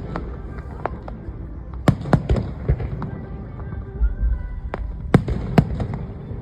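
Aerial fireworks shells bursting at a display: a string of sharp bangs, most of them between about two and six seconds in, over a low rumble, with music playing underneath.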